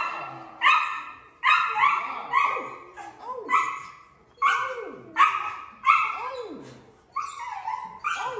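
Dog barking over and over, about a dozen sharp barks roughly every half to three-quarters of a second, each trailing off in the room's echo.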